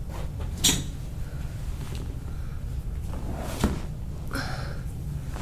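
Two sharp cracks of joints popping under a chiropractic adjustment, about three seconds apart.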